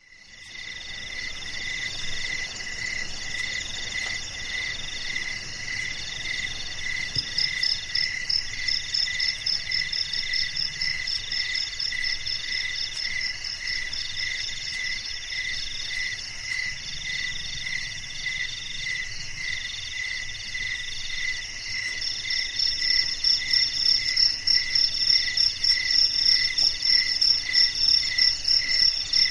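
Night chorus of crickets: several insects calling at once at different pitches, one in repeated trills about a second long with short gaps. Another calls in rapid high chirps that join in about seven seconds in and grow louder near the end.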